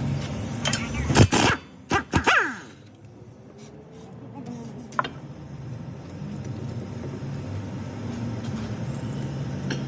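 A car driving, with a steady low rumble that slowly builds, and a few sharp knocks in the first two and a half seconds plus a single click about five seconds in.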